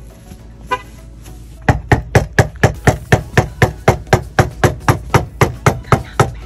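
A fist pounding fast and steadily on a motorhome's entry door, about four knocks a second, starting nearly two seconds in.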